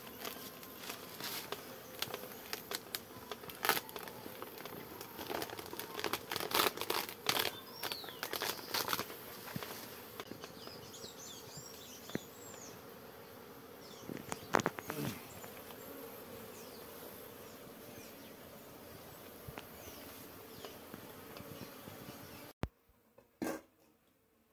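Bees buzzing in a steady swarm around an opened hive that is being smoked, with scattered sharp clicks and knocks. Near the end the sound cuts off abruptly to near silence, broken by a single knock.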